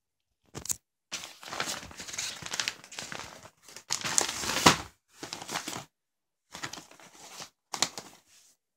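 Clear plastic wrapping on a pack of firework rockets crinkling and rustling as it is handled and pulled open, in irregular bursts with short pauses between them.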